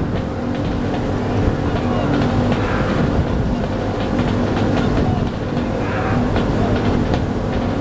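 A motorboat engine running steadily, over water splashing from the oar strokes of a fautasi longboat crew rowing past.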